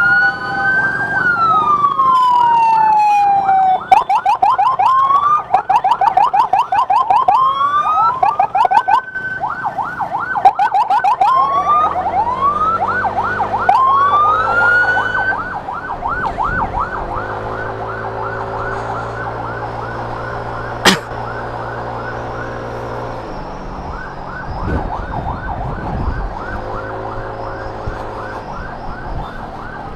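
Ambulance siren sounding continuously, a slow wail at first and then a fast yelp. It is loud at first and drops to a lower level after about twelve seconds. From then on a motorcycle engine runs steadily underneath.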